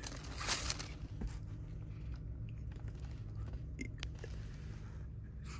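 Paper rustling and light crackling as a crisp fried chicken wing is picked out of a paper-lined basket, loudest about half a second in, followed by a few faint clicks, over a steady low hum.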